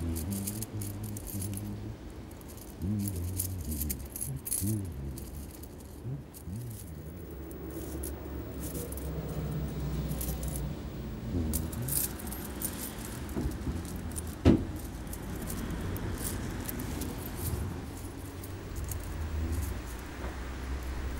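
Small metal objects jingling and clinking inside a cloth pouch that is being handled, with irregular light clicks and one sharp click about fourteen seconds in.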